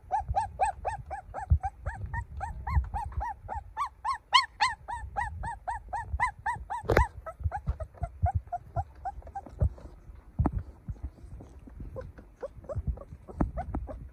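Puppy crying in a fast run of short, high whimpers, about five a second, growing louder about four seconds in and fading out about nine seconds in. A sharp click near the middle, and soft low knocks throughout.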